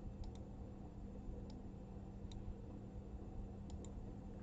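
Faint computer mouse clicks: about six sharp clicks, two quick pairs near the start and near the end with single clicks between, over a steady low hum.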